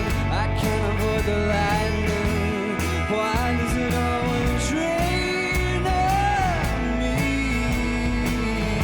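A band playing an indie rock song: guitars, bass and drums, with a sung vocal line bending over the top.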